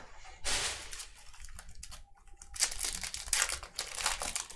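Foil wrapper of a baseball card pack crinkling and tearing as it is opened by hand, in two spells of rustling, the second longer and denser.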